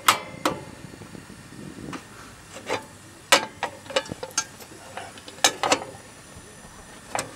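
Ridge Monkey sandwich-toaster pan being handled and slid into a camping stove's grill: about ten sharp metal clicks and knocks, unevenly spaced, as the pan meets the stove's grates and grill housing.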